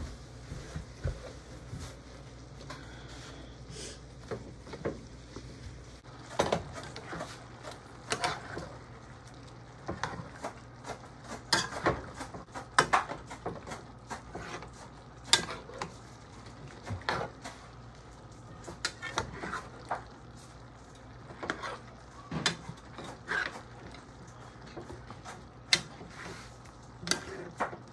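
A utensil stirring beef and broccoli in a frying pan, scraping and knocking against the pan irregularly, over a faint steady background noise.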